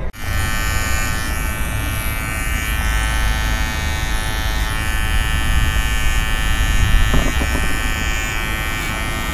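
Electric hair trimmer buzzing steadily as it edges the hairline around the ear.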